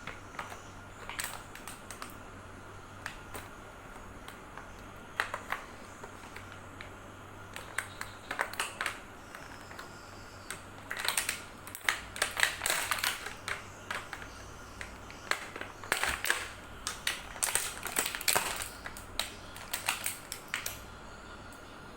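Irregular sharp clicks and taps, sparse at first and coming in quick clusters in the second half, over a faint steady hum.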